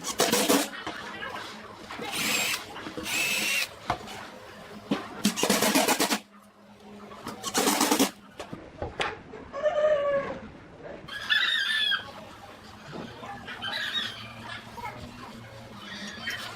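Several short bursts of a power tool running, over the first half, followed by chickens clucking.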